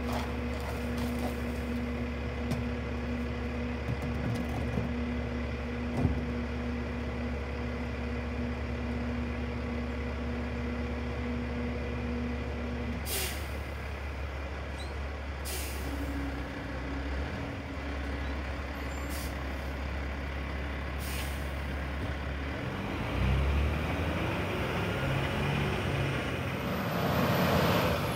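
Rear-loader garbage truck idling with a steady whine from its hydraulics, then four short hisses of air. Near the end the engine revs up.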